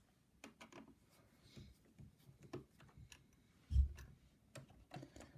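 Light, scattered clicks and ticks of small parts being handled inside an opened iMac during a memory upgrade, with one dull thump a little under four seconds in.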